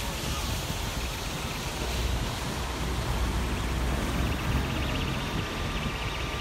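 Wind buffeting a phone microphone over a steady low outdoor rumble. A faint steady whine joins about four seconds in.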